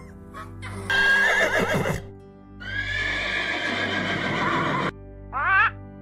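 Donkey braying in two long calls, the first about a second in and the second running for about two seconds, over background music. A short rising cry comes just before the end.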